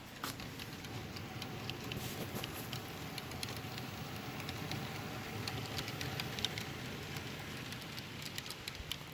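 HO scale model train running on track: a steady rumble of wheels and motor with many small irregular clicks, louder through the middle and easing off near the end.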